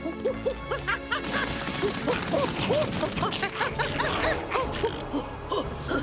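Cartoon background music of quick, fluttering notes, joined about a second in by a dense rushing whoosh.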